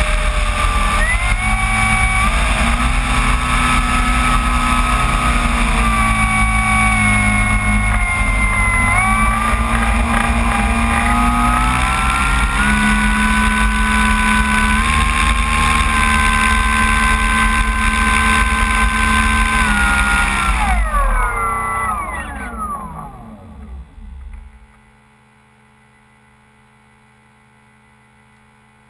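Electric motor and propeller of a radio-controlled Cessna 185 floatplane model running with a whine whose pitch steps up and down as the throttle changes while it taxis on the water. About twenty seconds in the pitch slides down and the motor winds down to a stop, leaving only a faint steady hum.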